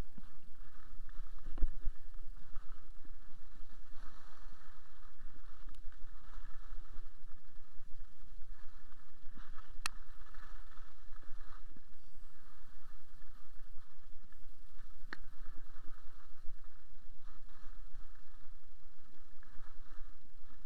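Skis hissing and scraping over packed snow on a downhill run, with a steady rush of wind noise on the body-worn camera. There is a thump near the start and two sharp clicks later on.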